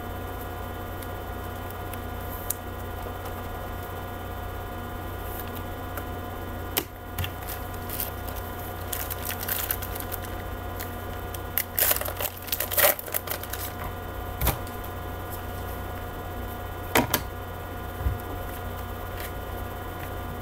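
Trading-card pack being torn open and the cards handled: scattered crinkles, taps and clicks, busiest in the middle with a few more near the end, over a steady electrical hum.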